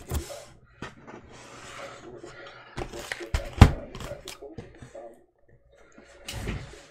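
Sealed cardboard trading-card boxes being shuffled and set down on a table: scattered knocks and scrapes, the loudest thud about three and a half seconds in.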